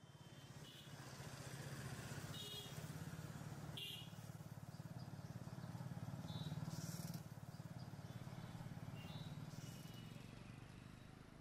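Street ambience with a motorcycle engine running steadily underneath and a few faint, short, high chirps now and then.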